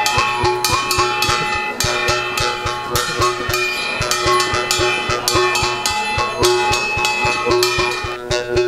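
Brass cymbals and a hand-held brass plate played as ritual dance percussion: quick, evenly spaced metal strokes, about four a second, with a ringing metallic tone hanging over the beat.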